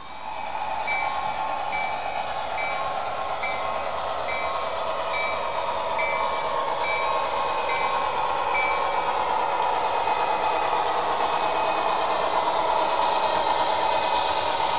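Model train running on layout track: a steady rushing whir that starts abruptly and grows slowly louder. A repeating high beep sounds about twice a second and stops about nine seconds in.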